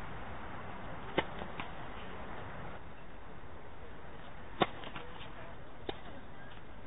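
Tennis ball pops from rackets striking the ball and the ball bouncing on a hard court. There is a sharp pop about a second in with a fainter one just after, the loudest pop a little past halfway, and a faint one later, over a steady outdoor hiss.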